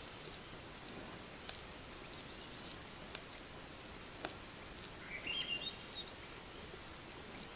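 A songbird sings one short phrase of rising, warbling notes about five seconds in, over a steady background hiss. A few faint sharp clicks come earlier.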